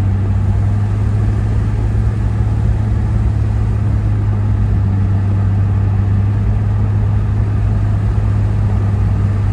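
1994 Chevrolet S10 Blazer's freshly rebuilt 4.3-litre V6 running at a steady cruise while driving, with road noise: an even, unchanging low drone. The engine sounds really good after the intake rebuild.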